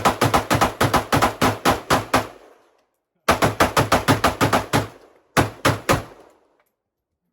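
Zastava M92 AK pistol in 7.62x39 fired rapidly in three strings of quick shots, about six a second. The first string is already going and stops about two seconds in, a second starts about three seconds in, and a short burst of about four shots comes near the end.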